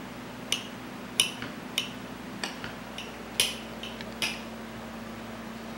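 A steel table knife and spoon clinking and scraping against a ceramic plate as an aloe vera leaf is cut and its gel scooped: about eight sharp, irregular clinks. A low steady hum runs underneath.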